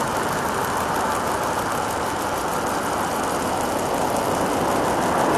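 Steady outdoor background noise, an even rush with no distinct events.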